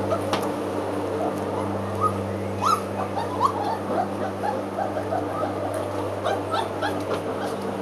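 A litter of puppies whimpering and yipping, many short rising cries a second, over the steady hum of a lawn mower running.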